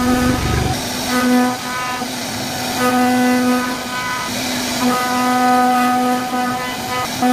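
Computer-controlled wood-carving machine cutting a wooden door panel: a steady, constant-pitch whine over a hiss of cutting noise, cutting in and out every second or so as the machine moves.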